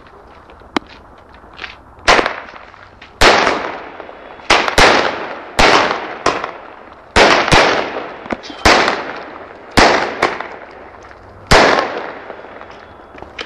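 A 9-shot consumer firework cake firing: a run of loud bangs about a second apart, starting about two seconds in, each trailing off in a fading tail.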